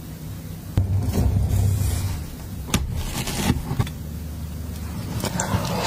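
A slice of strawberry tart is cut free and lifted from its shortcrust pastry shell. There is a thud about a second in, a few sharp crisp cracks around the middle and a rustle of handling near the end, over a steady low hum.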